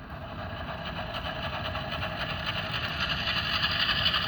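DCC sound decoder of a Walthers Mainline HO-scale ES44AC model locomotive playing its diesel engine sound as the model pulls away slowly, growing steadily louder.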